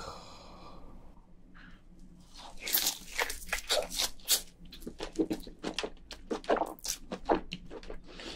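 A person biting and chewing soft, sauce-dipped giant crayfish tail meat: wet, clicky mouth sounds that start about two and a half seconds in and go on densely. A single sharp sound comes right at the start.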